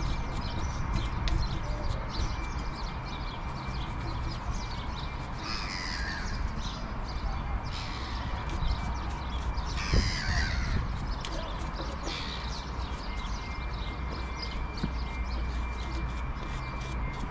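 A brush scrubbing rusty car suspension parts in quick, even strokes, about four a second. A bird calls twice in the background, about six and ten seconds in.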